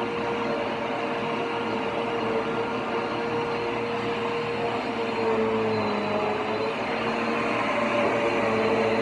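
WAP Life Speed 2000 W 2-in-1 vacuum cleaner running steadily with a high motor whine while vacuuming a sofa; the whine dips slightly in pitch a little past the middle as the nozzle loads against the upholstery.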